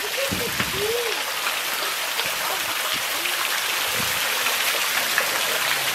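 Steady hiss of running, splashing water, with faint voices in the first second.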